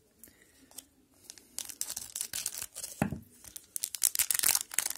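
The wrapper of a 2021-22 Upper Deck Series One hockey card pack crinkling and tearing open, a rapid run of sharp crackles that starts about a second and a half in and grows busier toward the end. A single dull knock comes about three seconds in.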